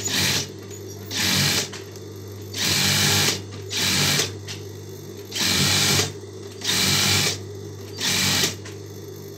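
Sewing machine stitching in seven short runs of about half a second to a second each, with a steady motor hum between them.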